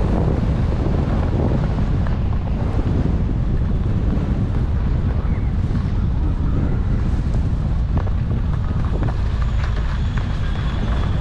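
Wind rushing and buffeting over the microphone of a skier's action camera while skiing downhill, with skis running on packed snow under it.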